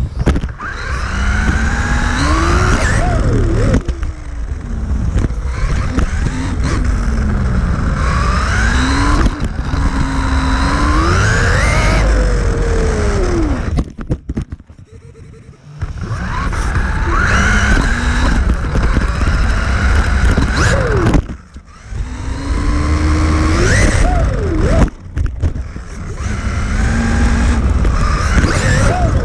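Losi Mini-T 2.0's 6,000 kV Dynamite brushless motor and drivetrain whining, rising and falling in pitch with the throttle over a loud rumble of tires on carpet, heard from a camera mounted in the truck's body. The whine drops away for about two seconds midway and briefly twice more near the end.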